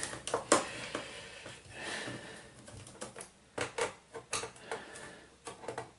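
Irregular light clicks and taps of hands handling the plastic body of a Casio DH-100 digital horn while working a screwdriver at its screws, with a faint scraping about two seconds in.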